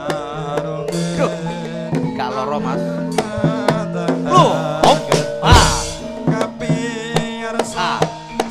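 Javanese gamelan music: hand-drum strokes, with a heavy low thump about five and a half seconds in, over sustained ringing metallophone notes and a wavering melodic line.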